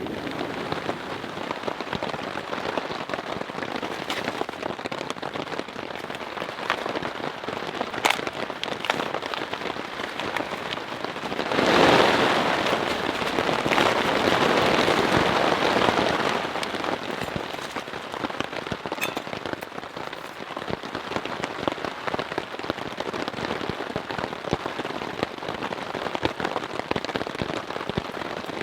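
Steady rain pattering on a tarp shelter, with scattered sharper drops striking it. Near the middle the rain swells louder for about four seconds, then eases back.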